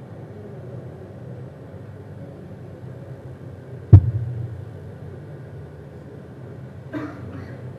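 Room tone of a lecture hall: a steady low hum, broken about four seconds in by one loud, sharp thump that dies away quickly. Near the end comes a brief, fainter sound.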